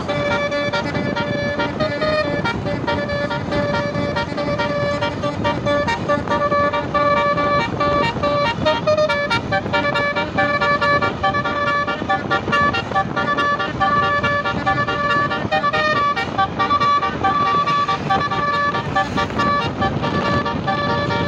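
Basuri-style telolet musical horn on a tour bus playing a tune in long held notes that step up and down in pitch.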